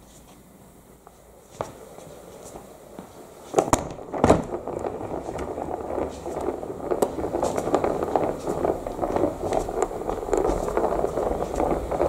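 Two sharp knocks about three and a half and four seconds in, followed by a continuous dense clatter of many small clicks from loose plastic LEGO bricks rattling.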